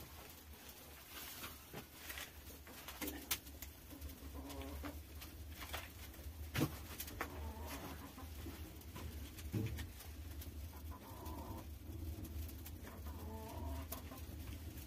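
Straw fuel catching and burning in a clay bread oven, crackling with many small clicks over a low steady rumble, as a wooden pole pokes and stirs it; a few sharp knocks stand out, the loudest about six and a half seconds in.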